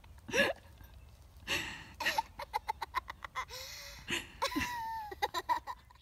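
Young girl laughing in several bursts of quick, rhythmic giggles.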